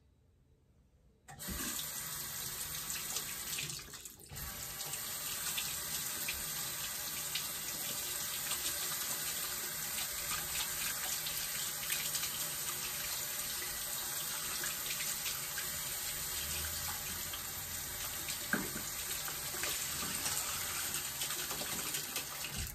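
Bathroom sink faucet running water into the basin, coming on about a second in, dipping briefly around four seconds, then running steadily until it is shut off at the end.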